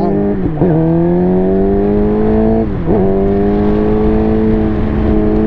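Suzuki GSX-R 600's inline-four engine pulling under throttle. Its pitch climbs slowly, with two short dips about half a second and nearly three seconds in, then holds steady, over a steady rush of wind and road noise.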